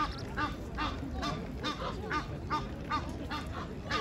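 Egyptian goose calling in a steady series of short calls, about two to three a second.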